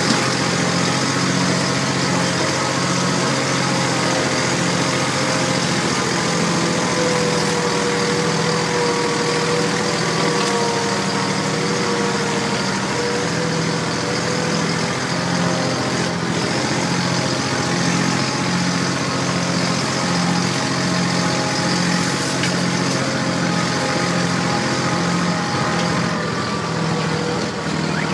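Farm tractor's diesel engine running steadily while the tractor drives along, its hum carrying a regular, even beat.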